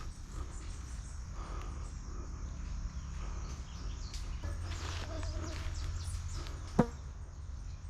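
Outdoor ambience with a steady low rumble and faint scattered distant sounds, and a single sharp snap a little before the end.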